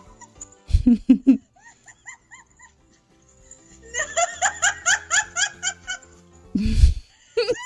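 A woman laughing in quick, high-pitched bursts, with a dog growling in three short low bursts about a second in.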